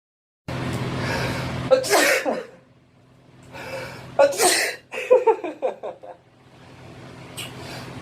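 A person sneezing, about two seconds in and again about four seconds in, each sneeze preceded by a breath drawn in. Short vocal sounds follow the second sneeze.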